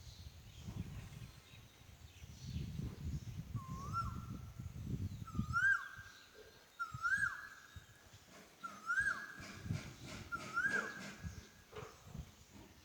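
A cuckoo calling five times, about every second and a half. Each call is a short note that swoops up and then holds steady. A low rumble runs under the first half.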